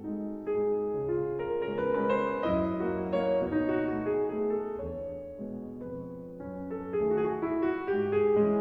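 Background piano music: several notes and chords sounding together, changing every second or so.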